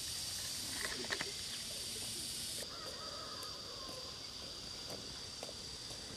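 Steady high-pitched insect drone over a light outdoor hiss, with a few light clicks of handling about a second in.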